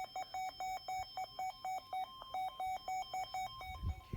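A rapid series of electronic beeps, about four or five a second, some short and some longer. Most are at one mid pitch, with a few at a higher pitch mixed in.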